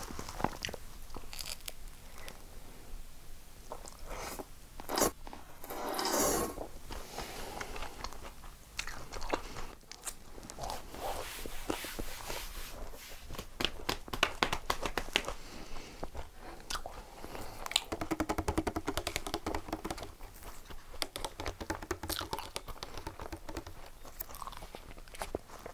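A person biting and chewing a slice of pizza close to the microphone, with crunching and crackling clicks throughout, thickest in the middle.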